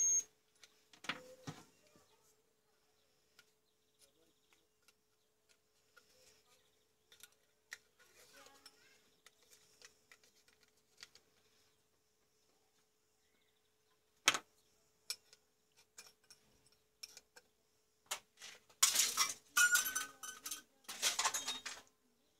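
Handling of a CFL bulb's plastic housing as it is pulled apart: light plastic clicks and taps, one sharp click a little past the middle, and a run of louder scraping and crackling near the end.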